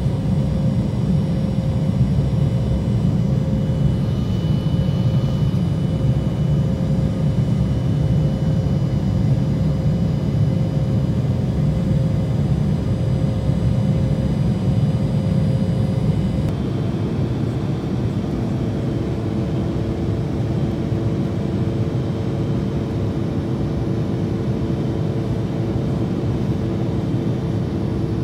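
Airliner cabin noise during the climb after takeoff: a steady, loud engine and airflow rumble with faint steady tones above it. About sixteen seconds in, it suddenly drops slightly in level and its tones shift.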